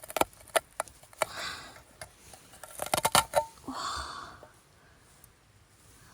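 Handling noises around a dish scrubber frozen stiff in sub-zero cold: a run of sharp clicks and knocks, thickest about three seconds in, with two short rustles, then quieter for the last two seconds.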